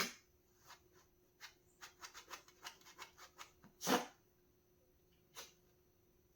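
Small dog snuffling through its nose: a quick run of faint snorts and nose clicks, with a louder snort about four seconds in, the build-up to a sneeze.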